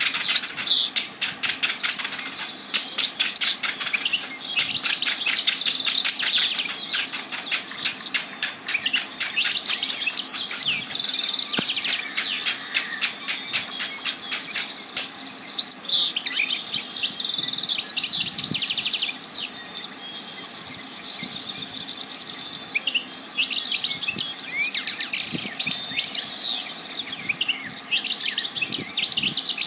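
Many songbirds chirping and singing at once, their calls overlapping. Through the first half a fast, even ticking runs beneath the song and stops about halfway.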